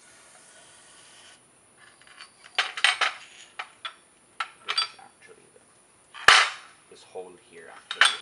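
Metal clattering and knocking as the cast aluminium body of a Weber 40 DCOE carburettor and loose metal parts are handled and set down on a board: a run of sharp clicks and knocks, with one loud knock about six seconds in and another near the end.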